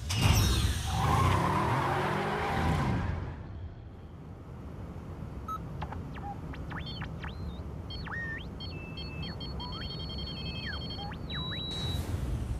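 Animated-film car sound effects: a loud burst of noise with falling tones at the start, then the steady rush of a speeding car with short electronic bleeps and sweeping tones over it, swelling briefly near the end.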